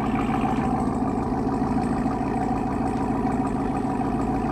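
Ram TRX's supercharged 6.2-litre V8 idling steadily through a newly fitted MagnaFlow xMOD Series cat-back exhaust.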